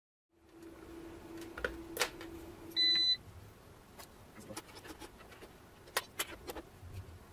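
A short electronic beep about three seconds in, together with a steady low hum that stops at the same moment, from the solar inverter-charger or the bench multimeter under test. Scattered sharp clicks and taps as wires and test leads are handled at the inverter's terminals.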